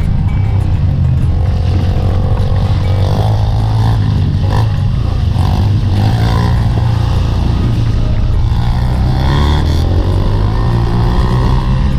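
Trail motorcycle engine running steadily, with some uneven rises in pitch.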